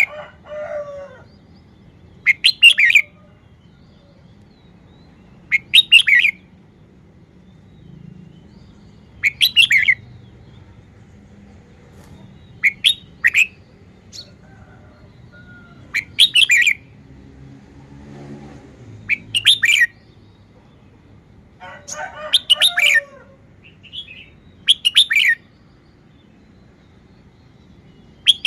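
Red-whiskered bulbul singing short, bright chirping song phrases, repeated about every three seconds. Softer, lower chattering comes in twice, just after the start and near the end.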